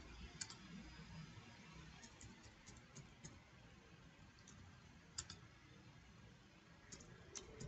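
Faint computer keyboard keystrokes, a dozen or so scattered clicks in small groups, over quiet room tone.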